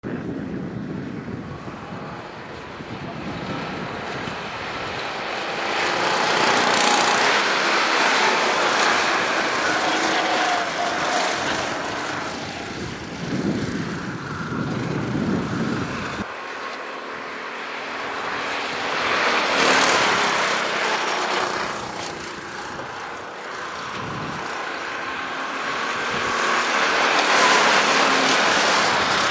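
Rental go-kart engines buzzing past on a circuit, the sound swelling and fading as karts go by, loudest about a third of the way in, around two-thirds in, and near the end.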